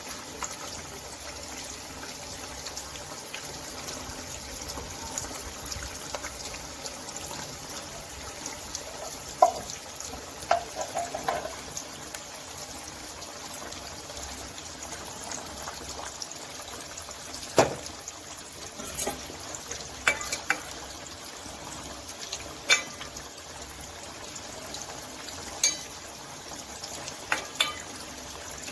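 Food cooking in a pan, a steady hiss, with sharp clinks of a utensil against the pan now and then, mostly in the second half.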